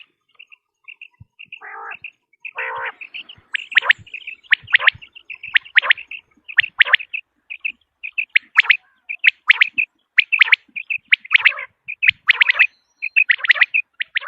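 Common quail calling over and over in short, high chirping calls, roughly one or two a second. A couple of lower, rougher calls come about two seconds in.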